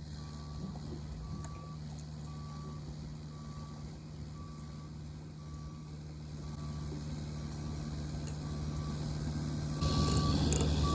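Backup alarm on a diesel construction machine beeping steadily, about one and a half beeps a second, over the engine's steady running. The machine gets louder toward the end, with a step up in level near the end.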